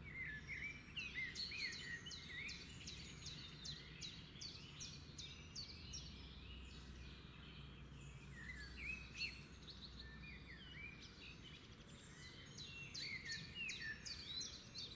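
Birds chirping: many short, quick calls that come and go, busiest near the start and near the end, over a faint steady low hum.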